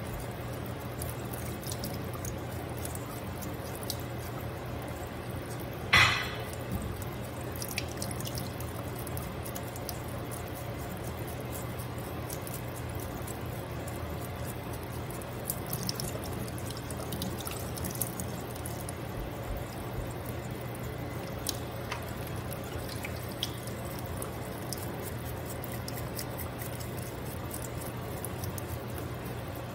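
Water running and dripping into a stainless-steel kitchen sink, with light scraping of a knife along salmon skin. One sharp knock about six seconds in.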